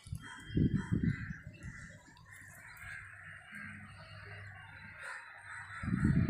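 Fish pieces frying in oil and masala in a nonstick pan with a steady sizzle, stirred with a steel spatula. Two loud pairs of bird calls stand out, one pair near the start and one near the end.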